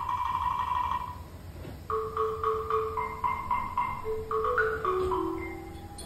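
Background music: one held note, then a quick tune of short plinking notes about three a second over a lower line that steps down near the end.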